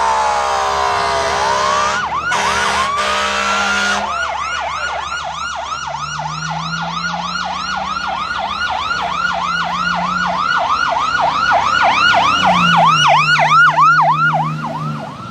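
Fire truck air horn sounding over a siren that winds down in a slow wail and then chirps, the horn cutting off about four seconds in. The siren then switches to a fast yelp of about four sweeps a second, growing louder before fading near the end.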